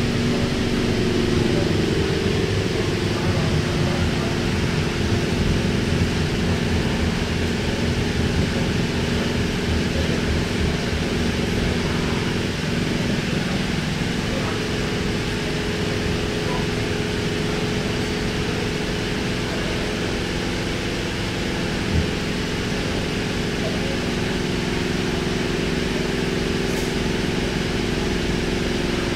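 Interior of a K-set double-deck electric train carriage: the train rolls to a stop and stands at a platform, with a steady hum and background noise from its onboard equipment throughout, and a single click about three quarters of the way through.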